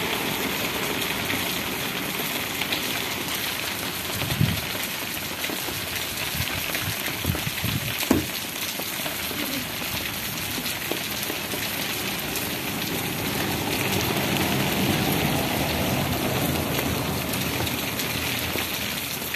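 Light rain falling steadily: a continuous hiss of drops on the wet street. A few sharper knocks come about four and eight seconds in.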